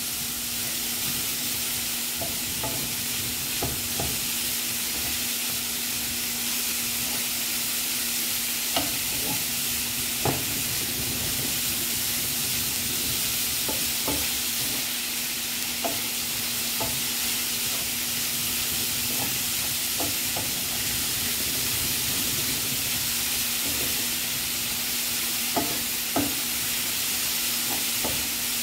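Cauliflower rice sizzling steadily in a frying pan while a wooden spatula stirs it, with scattered light knocks of the spatula against the pan. A steady low hum runs underneath.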